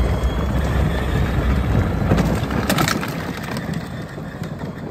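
Hard plastic wheels of a Power Wheels Jeep Hurricane Extreme ride-on toy rumbling and clattering over wooden boardwalk planks, with a few sharp knocks; it gets quieter in the last second or so.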